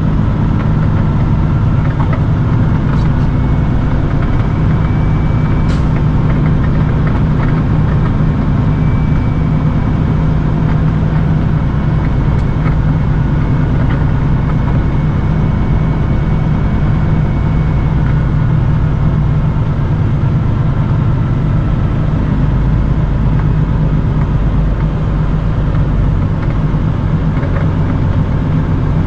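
Peterbilt 579 semi truck's diesel engine running with a steady, unbroken drone as the truck drives.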